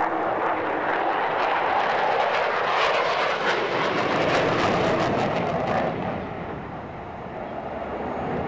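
Jet noise of Mitsubishi F-2 fighters, each with a single turbofan, flying past during a display: a loud rushing noise with crackling about three to five seconds in, then falling off about six seconds in and building again near the end.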